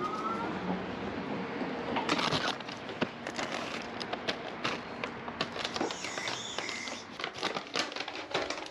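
Riding noise from an e-bike: a steady rush of wind and tyre noise with irregular clicks and rattles throughout, and a brief squeak about six seconds in.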